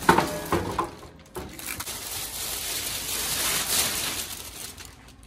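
Plastic wrapping sheet rustling and crinkling as it is handled and pulled off, with a few sharp handling knocks in the first second.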